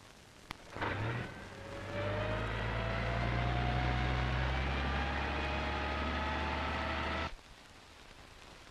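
A motor vehicle's engine pulling away, its pitch rising slowly and steadily over a low, even hum, then cut off suddenly near the end. A single sharp click comes just before it starts.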